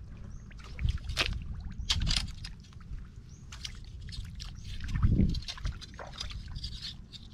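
Wet mud and shallow water sloshing and squelching as a man wades and works a long probing stick into a flooded mud-crab burrow, with scattered short splashes and clicks over a steady low rumble. The loudest moment is a low sloshing burst about five seconds in.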